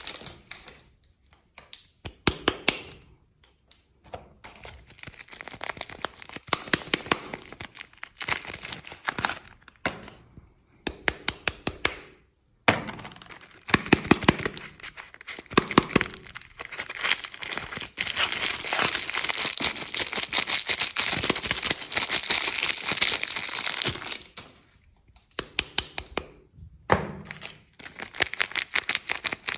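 Soap bars being unwrapped by hand: wrappers crinkling and tearing, with many sharp clicks and taps. A long stretch of steady crinkling comes about two-thirds of the way through.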